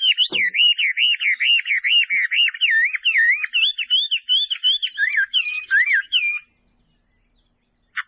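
A songbird singing a fast run of clear, looping whistled notes, each sliding down and back up, about three a second. The song cuts off abruptly about six and a half seconds in.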